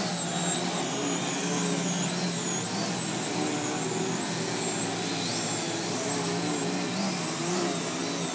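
Several radio-controlled 3D aerobatic planes hovering together, their motors and propellers whining at once. The pitches rise and fall every second or so as the throttles are worked to hold each plane in its nose-up hover, over a steady low drone.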